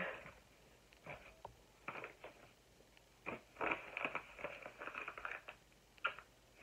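Packaging rustling and crackling as a yellow padded mailer is handled: a few short crackles early on, then a dense run of rustling about halfway through.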